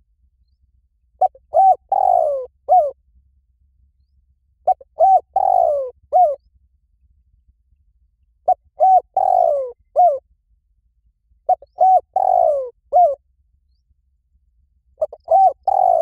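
Spotted dove cooing: five phrases, one every three to four seconds. Each phrase is two short notes, then a longer falling coo, then a short closing note.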